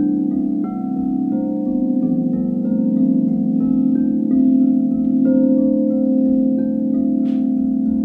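A set of large frosted quartz crystal singing bowls ringing together: overlapping sustained tones with a slow wavering beat, and fresh higher notes entering about every two-thirds of a second. A brief hiss sounds near the end.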